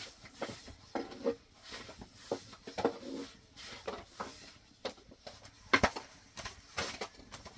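Scattered light knocks and clatter of objects being handled, coming at irregular intervals, with a sharper knock near the end.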